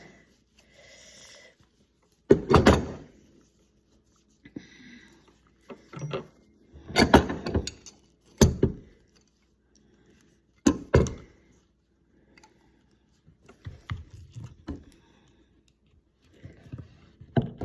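Sharp clicks, knocks and scrapes of a tool working on a Sonicare electric toothbrush's plastic housing to pry a stuck part loose. They come in irregular bursts, a few loud knocks among quieter scraping with short pauses between.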